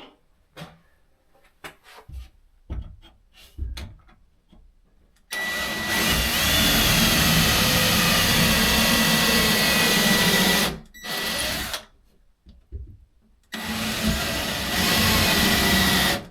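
A power drill drilling holes into a wall. It runs steadily with a high whine for about five seconds, gives a short burst, and then runs again for about three seconds near the end. Light handling clicks come before it.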